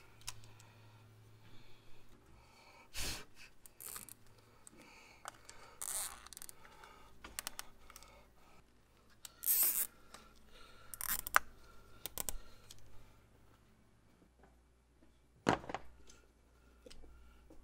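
Hand-work noises in an engine bay: scattered clicks, scrapes and rustles of gloved hands on hoses and filters, with a few short raspy zips as nylon zip ties are ratcheted tight. The loudest are brief bursts a little over halfway through.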